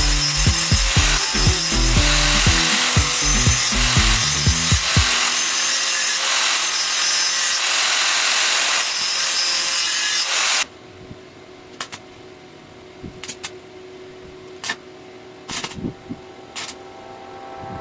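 A power tool running with steady grinding noise under background music, cutting off abruptly about ten seconds in. After that comes a quieter stretch with a few scattered sharp clicks.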